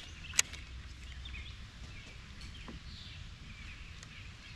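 Birds chirping faintly and intermittently over a low steady outdoor rumble, with one sharp click or knock about half a second in.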